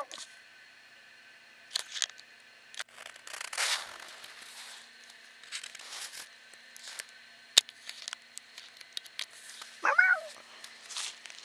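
Domestic cat meowing once near the end, a short call that bends up and down in pitch. Before it come scattered sharp clicks and rustles.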